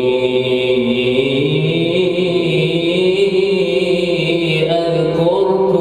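A man chanting Quran recitation in a long, slowly gliding melodic line, one unaccompanied voice held almost without a break.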